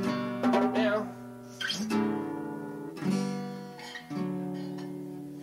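Acoustic guitar strumming chords, four strums each left to ring and fade.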